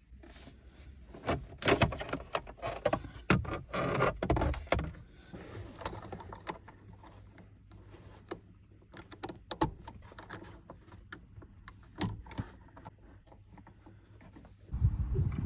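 Irregular clicks, taps and light metallic rattles of parts and hand tools being handled during brake work, dense for the first five seconds and then sparser. A louder rubbing, scraping noise starts just before the end.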